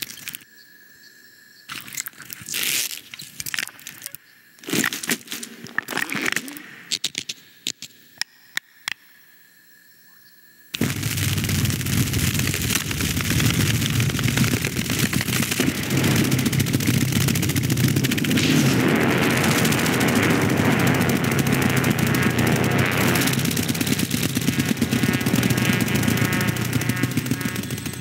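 Scattered clicks and cracks. About eleven seconds in, a loud, dense whirring buzz of many insect wings starts suddenly and carries on: the sound-designed wings of a grasshopper swarm taking off and flying.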